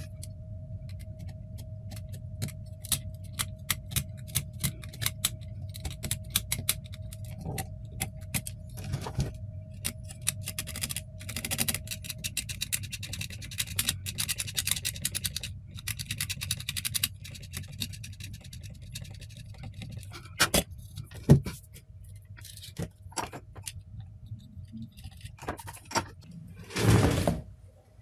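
A snap-off utility knife scraping and nicking at a circuit board to cut through a copper trace: a long run of small clicks and scratches, denser in the middle. A faint steady tone and a low hum sit underneath, and a louder rustle comes near the end.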